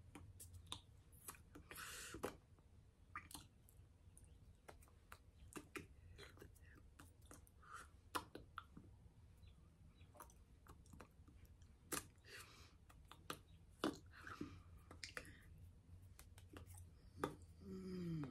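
Near silence broken by faint, irregular mouth clicks and soft breaths of a person signing without speaking. Near the end comes a brief low hum that falls in pitch.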